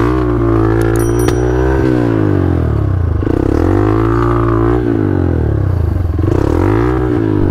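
Trail motorcycle engine revved up and down about three times, the pitch rising and falling with each blip of the throttle, as the bike struggles for grip on a slippery muddy climb. A couple of light clicks sound about a second in.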